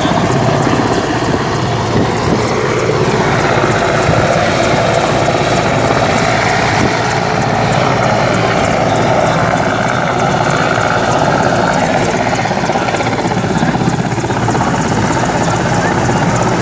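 Helicopter running steadily with its rotor and engine noise loud and unbroken.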